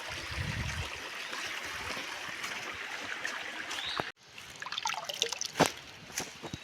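Stream water trickling and running steadily over stones. About four seconds in, the sound cuts off abruptly, and a quieter stretch follows with a few sharp clicks or knocks, one louder than the rest.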